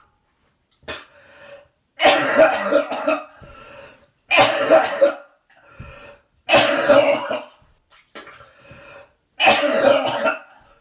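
A man retching and vomiting: four loud heaves, each about a second long and a couple of seconds apart, with quieter sounds between them. He is bringing up bile on an empty stomach during a cyclic vomiting syndrome episode.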